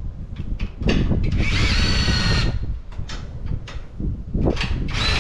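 Handheld power driver running in two bursts, a longer one starting about a second in that rises in pitch and then holds steady, and a shorter one near the end, with scattered knocks and clinks of tools between them.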